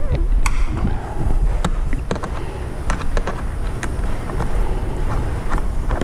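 Clothing rustling and rubbing against the microphone, giving a steady low rumble, with scattered small clicks and taps from hand work fitting a sun visor and its screw.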